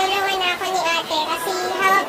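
A high voice singing a melody in short held notes.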